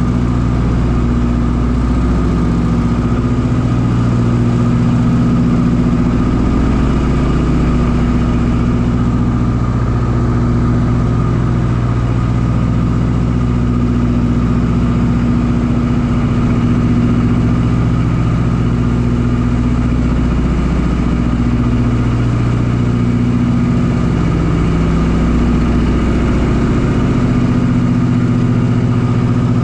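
Ford Tri-Motor's radial engines running at cruise in flight, heard from inside the cabin: a loud, steady drone whose low tones slowly swell and fade against each other.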